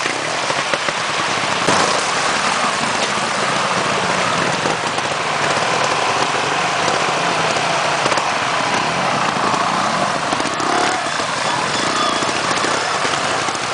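Trials motorcycle engines running at low revs as the bikes climb a rocky stream bed, the pitch wavering a little with the throttle.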